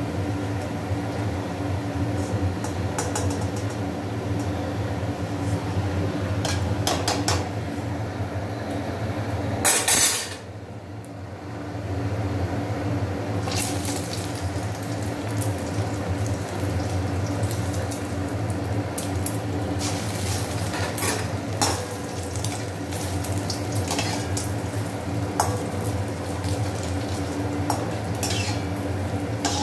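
Egg-battered bread pieces deep-frying in hot oil in a stainless steel kadai, with a steady sizzle and the perforated steel skimmer clinking and scraping against the pan. A loud short burst comes about ten seconds in, followed by a brief quieter stretch.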